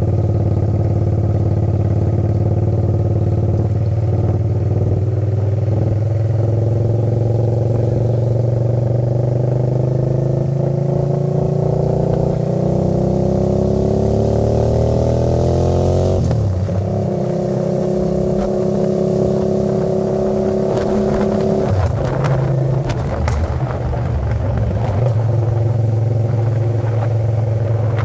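Hyosung GV650's V-twin engine, through its new aftermarket exhaust, running under way. The pitch climbs steadily for several seconds, drops sharply a little past halfway, then holds steady and steps down once more about three-quarters through, with some clatter around then.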